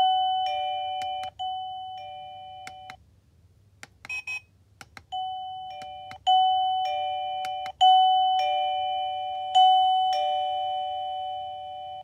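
KERUI M518 wireless doorbell receiver playing its electronic chime: a run of bell-like notes, each struck sharply and fading away, in two groups. In a pause between them, a few faint clicks.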